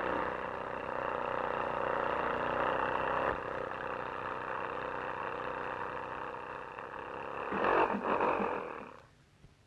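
Cartoon sound effect of a small car's engine running as a steady, noisy hum. It grows louder with sputtering pulses near the end, then dies away to near silence.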